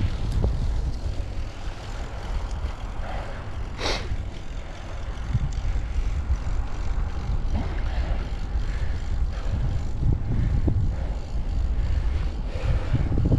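Wind buffeting the microphone as a steady, gusty low rumble, with a sharp click about four seconds in.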